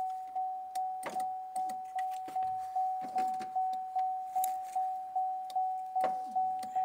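2008 Chevy Impala's electronic warning chime ringing over and over: one note repeated about two and a half times a second, each ding fading before the next. Light clicks and rustling of plastic door parts being handled come through it.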